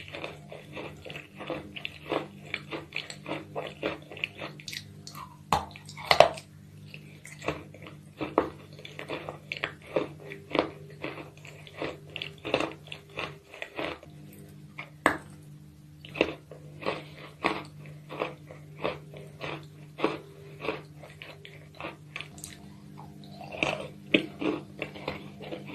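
Close-miked mouth sounds of chunks of white chalk being bitten and chewed: sharp, crisp crunches come a few times a second, mixed with wet chewing of the chalk paste. A steady low hum runs underneath.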